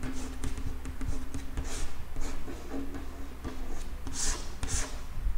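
Chalk writing on a blackboard: a series of short scratchy strokes, the strongest two coming near the end.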